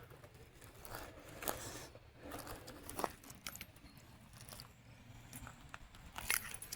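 Footsteps crunching over dry ground and brush: scattered, irregular faint crunches and clicks, a couple of louder ones about a second and a half and three seconds in.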